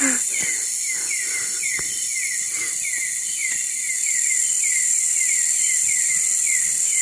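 Night-time tropical forest insect chorus: a steady high shrill drone, with a short falling chirp repeating two to three times a second. A few faint clicks sound under it.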